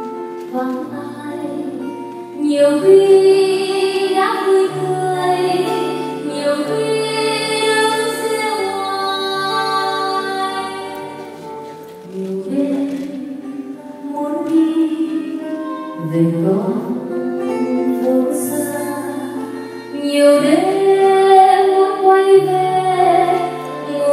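Live performance of a woman singing a slow melody with long held notes, accompanied by acoustic guitar and violin over steady bass notes.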